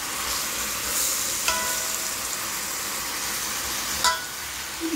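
Water spinach (kangkong) sizzling in a hot wok as it is stir-fried with a metal spatula, a steady hiss with two short ringing clinks of the spatula on the wok, one about a second and a half in and one near the end.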